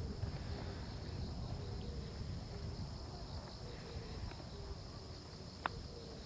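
Faint outdoor ambience of low wind rumble and insects chirping in short repeated notes. Near the end comes a single sharp click: a putter striking a golf ball on the green.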